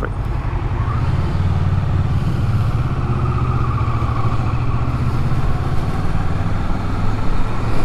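Kawasaki motorcycle engine running steadily at low revs in slow stop-and-go traffic.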